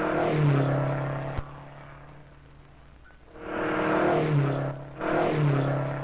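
Car engine revved in three sharp blips, each falling back in pitch to a steady idle, with a single click about a second and a half in.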